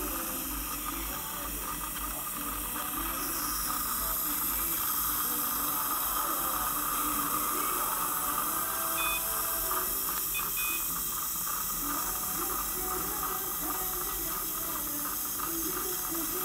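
Dental saliva ejector suction hissing steadily, with a faint irregular gurgle. Two short electronic beeps from the dental curing light are heard past the middle.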